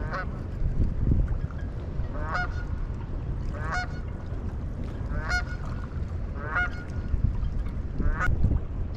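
A goose honking, six calls about a second and a half apart, over a steady low rumble of wind and water.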